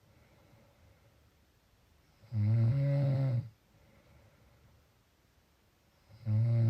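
Snoring in a slow, regular rhythm. One loud, buzzing snore about two seconds in lasts about a second, and the next begins near the end, with quiet breathing between.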